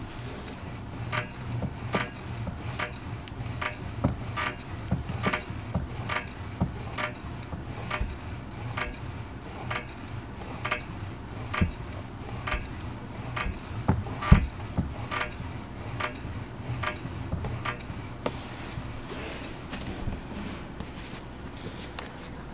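Wonder Core Smart ab exerciser being pumped in steady repetitions, with a short click at each stroke, about one every 0.8 s, stopping about 18 s in.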